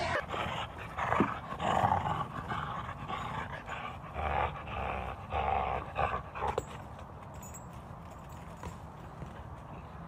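A dog growling in short, rough bursts during play, with a few knocks.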